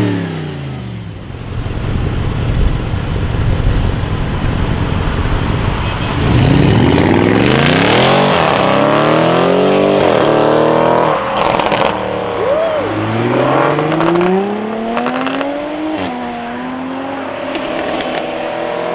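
Audi RS6 C7's twin-turbo V8 through a straight-pipe exhaust, revving and accelerating hard: the engine pitch climbs about six seconds in, drops sharply, then climbs again at about thirteen seconds. A few short, sharp exhaust cracks sound between the pulls.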